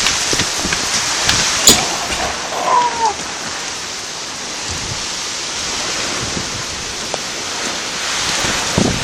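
Strong wind and hail in a storm: a steady rushing noise with scattered sharp ticks of hailstones striking, and one loud crack about two seconds in.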